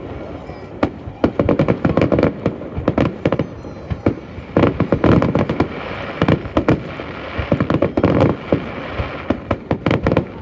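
Aerial fireworks going off in quick volleys of sharp bangs and cracks, several bursts close together in each volley, with short lulls between the volleys.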